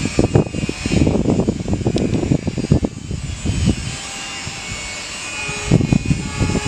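Wind buffeting the microphone in gusts over the rumble of a container freight train running away around a curve. From about five seconds in, a faint steady droning tone with overtones comes in.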